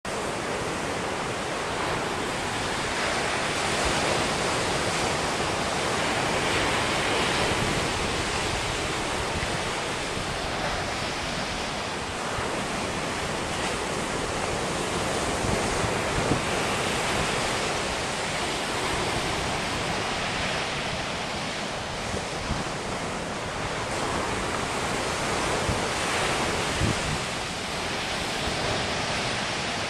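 Atlantic surf breaking on a sandy beach: a continuous wash of waves that swells and eases as each set comes in. Wind knocks on the microphone now and then.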